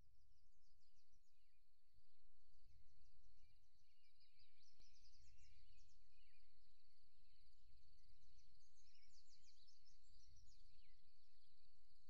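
Outdoor country ambience: birds chirping in short bursts over a steady high trill, with a low rumble underneath.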